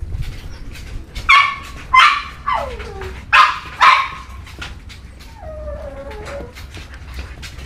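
Young dachshunds barking and yipping: four sharp yaps in the first four seconds, one of them trailing off into a falling whine. A softer, wavering whine follows about six seconds in.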